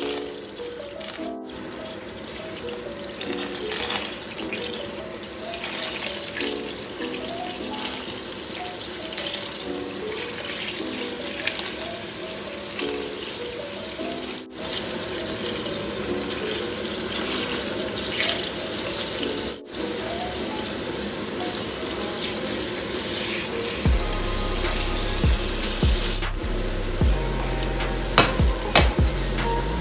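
Butter sizzling and bubbling gently in a stainless steel frying pan as salmon fillets cook slowly in it over low heat, under background music with a light melody. A bass line joins the music about 24 seconds in, with a few sharp clicks near the end.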